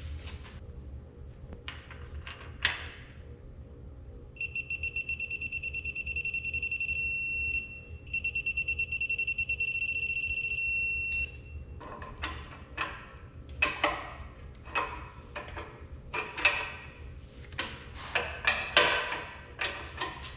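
Digital torque wrench beeping as connecting-rod cap bolts are pulled up to torque: a quick run of high beeps that turns into a steady beep as the set torque is reached, twice in a row with a short break between. After that come sharp metal clicks and clanks of tools on the engine block.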